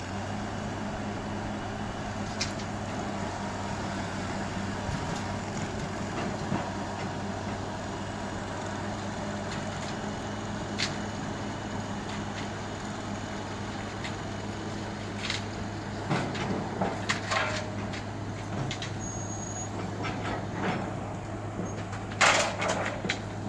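Rotary drilling rig's diesel engine running steadily, with scattered clanks. The clanks come in a quick cluster about two-thirds through and as a longer clattering burst near the end.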